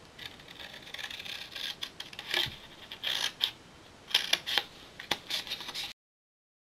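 Scissors snipping through cardstock in several short runs of cuts, freeing the corner tabs of a folded box base. The sound stops dead a little before the end.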